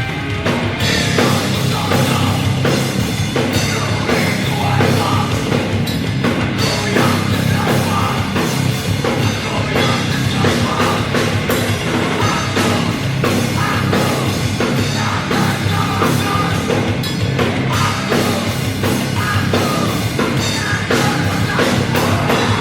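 Loud heavy rock music from a band, with a full drum kit under the guitars.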